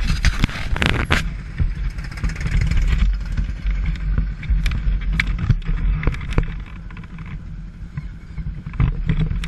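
Low, steady rumble of motorcycles idling in a group, with repeated knocks and rubs from the windshield-mounted camera being handled, most of them in the first second or so.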